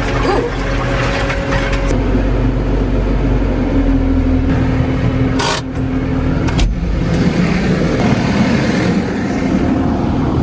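Farm tractor engine running steadily, with two sharp knocks about a second apart near the middle.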